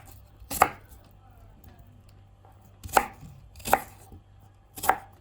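Kitchen knife cutting a peeled snow pear into chunks, chopping through onto the cutting board: four sharp knocks, one about half a second in and three more spaced about a second apart from about three seconds on.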